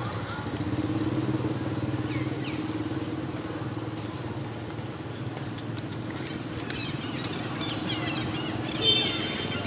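A motor engine running steadily in the background, fading out near the end. Birds chirp over it in the last few seconds.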